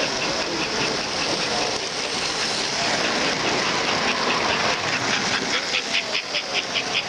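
Model train running on the layout, giving a regular clicking of about four to five a second that grows louder about two-thirds of the way through, over the steady murmur of a crowded hall.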